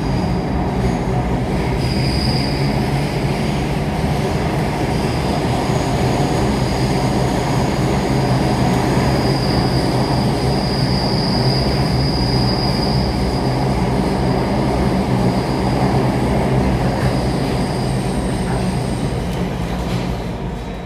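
Cabin noise of an Alstom Metropolis C830 metro train running between stations: a steady rumble of wheels on rail with a high-pitched wheel squeal that comes and goes, strongest about two seconds in and again around ten to thirteen seconds in. The noise drops off near the end.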